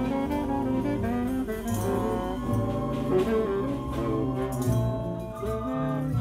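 A small street band of brass and wind instruments playing a tune in held notes and changing chords over a bass line.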